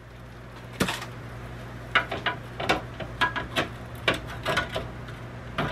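Metal tongs clicking and clacking against the Ninja Foodi XL Grill's crisper basket as chicken wings are picked up: about a dozen irregular sharp clicks over a steady low hum.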